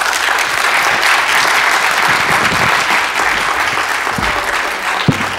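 Audience applauding, easing off slightly toward the end, with a single knock about five seconds in.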